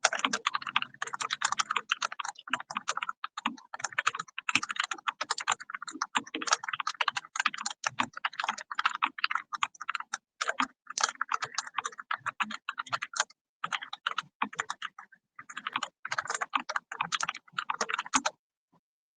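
Fast, continuous typing on a computer keyboard at about 100 words per minute, a rapid stream of key clicks with a few short pauses, stopping shortly before the end.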